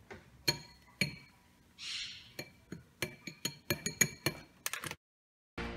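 Steel beaters of an electric hand mixer clinking against a glass mixing bowl, a run of sharp clinks that come faster toward the end and then cut off suddenly.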